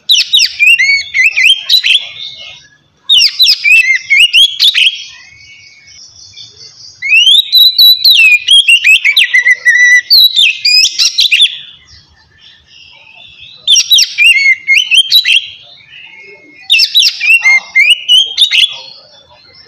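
Oriental magpie-robin (kacer) singing loud, varied whistled song in five bursts of rapid notes with short pauses between, the middle phrase the longest at about four seconds.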